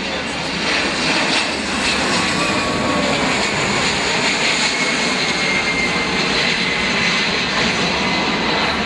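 Amphibious aircraft's engines running loud and steady at high power, with a faint high whine over the noise.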